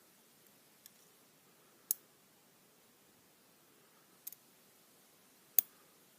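A few sharp, light clicks of small metal lock parts being handled as the pin stack is taken out of the fifth chamber of a lock: four separate ticks, the second and the last the loudest.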